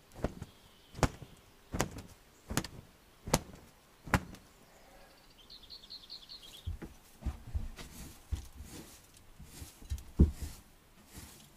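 Six sharp knocks in an even rhythm, a little under one a second, then a short high bird trill, then irregular softer thumps and rustling with one loud knock near the end.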